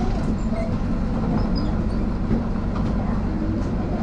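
Mercedes-Benz OF-1722M city bus heard from on board while it drives: a steady low engine and drivetrain rumble, with the growling of its drive shaft (cardan).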